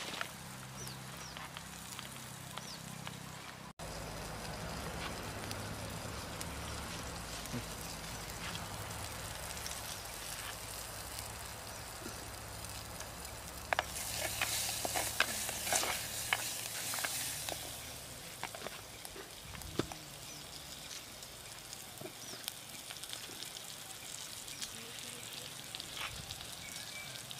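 Banana flower and greens sizzling in a pot over a crackling wood fire. About halfway through, a wooden spoon stirs and knocks in the pot for a few seconds, louder, with clicks.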